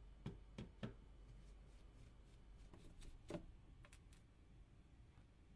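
Faint clicks and ticks of a small Torx screwdriver working screws out of a phone's base chassis: three quick clicks within the first second, a louder one a little over three seconds in, and a few lighter ticks after.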